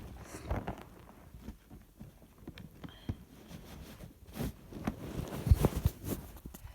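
Short sniffles and breaths from a woman with a heavy head cold, mixed with scattered rustling and tapping; the sounds bunch together about four to six seconds in.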